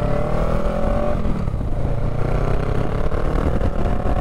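Honda Rebel 500's parallel-twin engine accelerating, its pitch rising, dropping at an upshift about a second and a half in, then rising again. Wind noise runs underneath.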